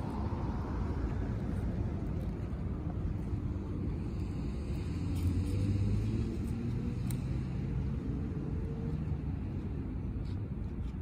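Steady low rumble of road traffic, a little louder about halfway through.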